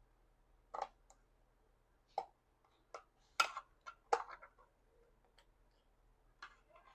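Small irregular clicks and taps of a screw, nut and 3D-printed plastic box-magazine parts being handled and fitted together, about ten in all, the loudest two around the middle.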